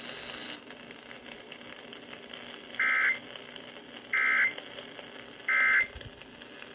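Emergency Alert System end-of-message (EOM) data bursts from a radio: three short buzzy digital tone bursts about 1.3 s apart, marking the end of a severe thunderstorm warning broadcast. Faint radio hiss underneath.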